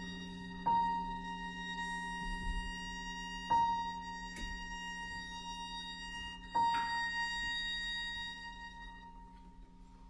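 Quiet contemporary chamber music from a live ensemble. Soft held string tones sit under a single high note, struck three times about three seconds apart, each one ringing and fading away.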